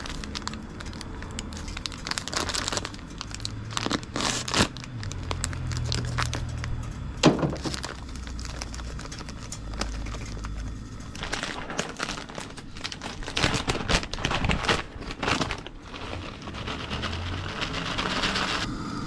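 Plastic bags crinkling and rustling in irregular crackles while the bags are handled and crispy onions are poured from their packet into a zip-top bag of seasoned flour.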